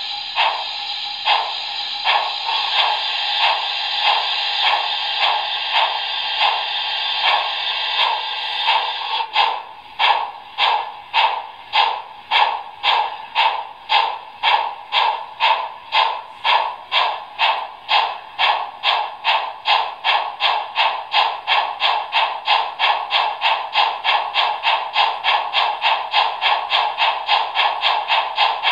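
Sound decoder of a Trix Union Pacific Challenger model steam locomotive, playing through its small speaker as it runs on a test stand. A steady steam hiss stops about nine seconds in, and regular exhaust chuffs follow, quickening steadily from under two a second to about three a second as the throttle is opened.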